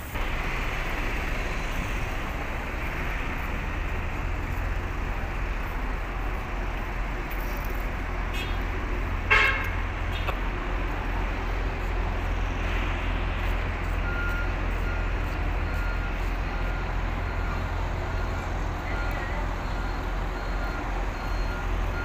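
Street traffic noise with a steady low rumble. A short loud horn toot comes about nine seconds in, and a faint beeping tone repeats from about fourteen seconds on.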